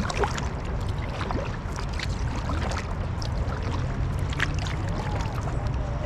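Kayak paddling: water splashing and dripping off the paddle blade in many small irregular ticks and splashes, over a steady low rumble.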